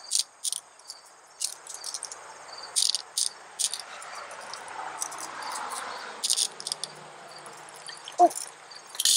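Glass gemstones clicking against one another, one sharp click at a time at uneven intervals, as they are added to a pile of gems in a floating paper boat. Behind it, a steady high chirring of crickets.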